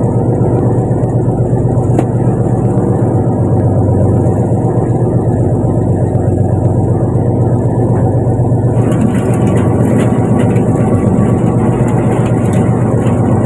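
Fishing boat's engine running at a steady speed with a low, even drone. About nine seconds in, a hissing, crackling noise joins it.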